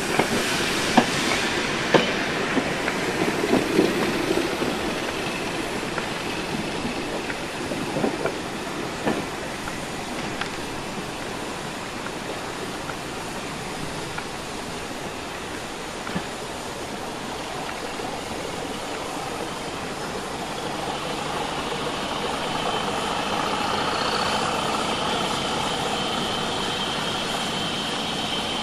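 Railway coaches rolling slowly past at close range, their wheels clicking and knocking over rail joints and pointwork. Later, a diesel locomotive engine running steadily, with a faint high whine.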